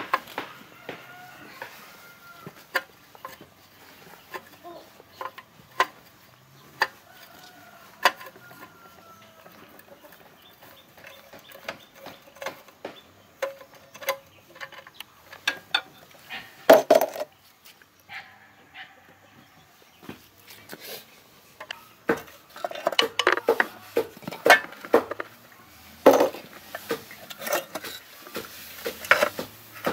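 Hand tools and metal parts clinking and clattering on a small petrol-engine water pump as it is taken apart. There is one loud clatter about halfway through and a busy run of clattering near the end, with chickens clucking faintly in the background.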